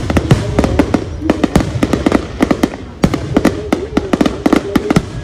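Fireworks display going off in quick, irregular succession: many sharp bangs and crackles from bursting shells, with a crowd's voices underneath.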